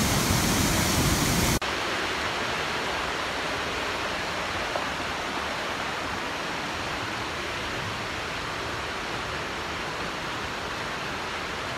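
Waterfall pouring over a rock ledge into a creek: a steady, full rush of water. About a second and a half in it cuts off abruptly to a quieter, thinner rush of fast-flowing creek water that carries on steadily.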